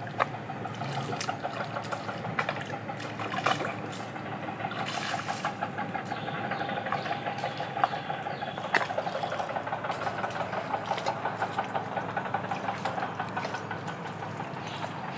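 Bare feet squelching and splashing through wet mangrove mud, with a few sharp knocks, over a steady, rapid pulsing buzz.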